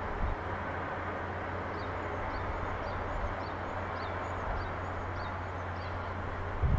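Outdoor harbour-side ambience: a steady hiss and low hum of distant city and shipyard, with faint high bird chirps every second or so and a low bump near the end.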